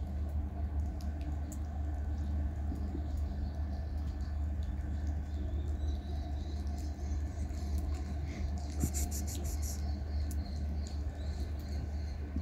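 Outdoor street ambience: a steady low rumble with faint scattered ticks, and a brief run of rapid high-pitched chirps about nine seconds in.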